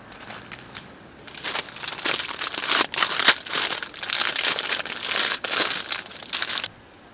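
Crinkling and crumpling of something being handled, a dense crackly rustle starting about a second in and stopping suddenly near the end.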